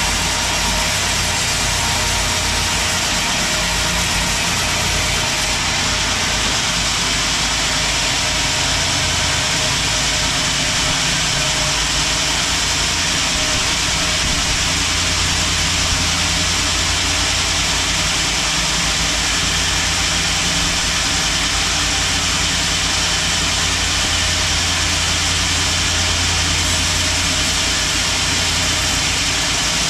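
Band sawmill running steadily: a low engine drone under a constant high hiss, with no breaks.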